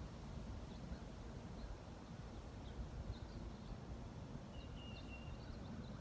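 An insect chirps in a fast, even, very high-pitched pulse over a low rumble. A short thin bird note sounds about four and a half seconds in.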